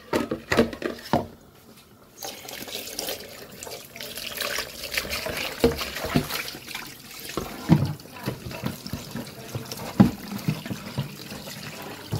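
Kitchen tap running into a plastic bowl in a stainless steel sink while the bowl is rinsed by hand. The water comes on about two seconds in and then runs steadily, with a few knocks as the bowl is handled.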